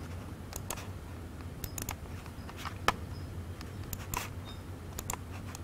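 About a dozen scattered, irregular clicks of laptop keys and mouse buttons being pressed, the sharpest about three seconds in, over a steady low hum.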